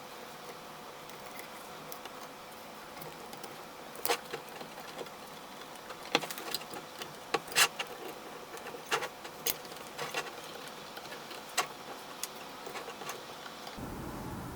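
Scattered small clicks and knocks of a USB microphone and its stand being handled and put together, over a faint steady hum.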